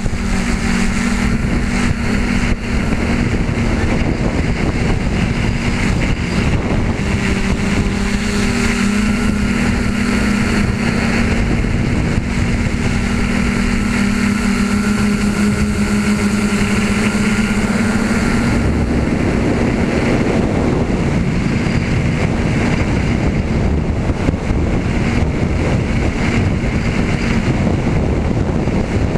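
Tricopter's electric motors and propellers humming steadily in flight, heard from a camera mounted on the craft, with wind rushing over the microphone. About two-thirds of the way through, the motor hum drops back and the wind rush takes over.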